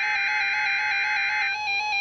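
NOAA Weather Radio EAS alert tones: a steady, buzzy electronic tone under a burst of shrill SAME header data screech that cuts off about one and a half seconds in.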